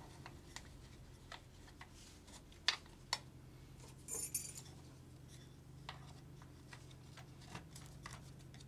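Faint handling of SCBA harness straps and belt fittings: scattered light clicks and taps, with two sharper clicks about three seconds in and a brief rattle about a second later, over a low steady hum.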